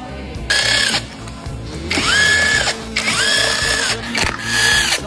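Handheld power tool run in four short bursts, its motor whine rising, holding and dropping each time, as fasteners are run out during an engine teardown.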